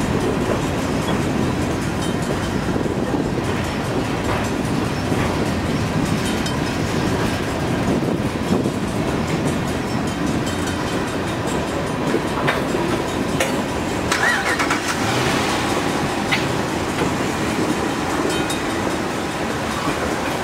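Freight cars of a long mixed freight train rolling past: a steady rumble of steel wheels on rail with scattered clanks and a short squeal about fourteen seconds in, under wind noise on the microphone.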